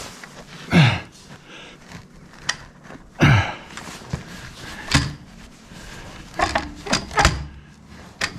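Clicks and clanks of a clamp tool and metal hydraulic quick-connect couplers being worked and forced together, with two louder scraping sounds that fall in pitch, about a second in and past three seconds. The couplers won't go in, which the owner puts down to pressure left in the hydraulic lines.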